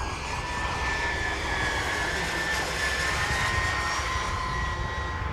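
Giant-scale radio-controlled model airliner in flight, its engines giving a steady whine with two tones that drift slightly up and down in pitch, over a low rumble.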